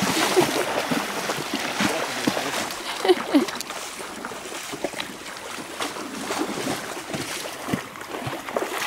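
Hooked king salmon thrashing in shallow river water: a burst of heavy splashing at the start, then repeated splashing and churning at the surface.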